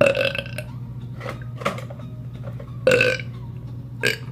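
A teenage boy burping: a loud burp right at the start and another about three seconds in, with shorter, fainter sounds in between and near the end.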